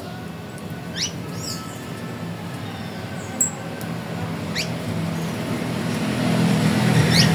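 Wild birds calling: quick upward-sweeping notes about a second in, at around four and a half seconds and near the end, with short high chirps in between, over a steady background hiss that grows louder toward the end.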